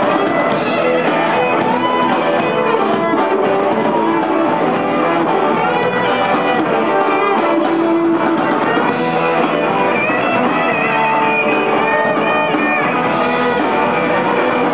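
Live rock band playing loudly, led by electric guitar.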